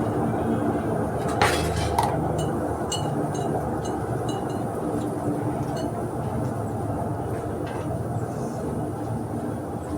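Metal utensils clinking on cookware: two sharp clanks, then a scatter of lighter clinks, over a steady low rumble.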